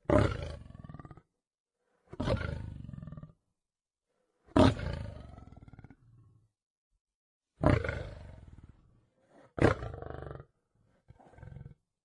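Male lion roaring: six separate calls, each starting loud and fading over about a second, with short pauses between them; the last call is shorter and fainter.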